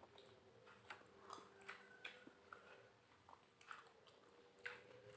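Faint chewing of a mouthful of tender beef rendang: soft, wet mouth clicks at irregular intervals.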